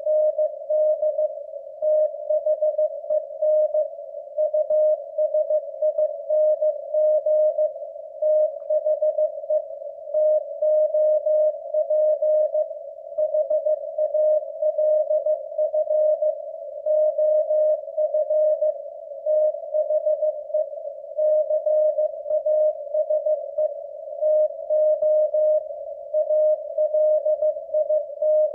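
Morse code sent as a single keyed tone at 15 words per minute: a W1AW code practice transmission of dots and dashes grouped into letters and words, with a faint hiss around the tone.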